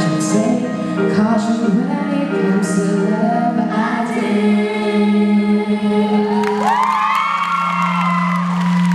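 A group of female voices singing in harmony, ending on held notes over a steady low sustained note. About six and a half seconds in, the audience breaks into cheering and clapping as the song ends.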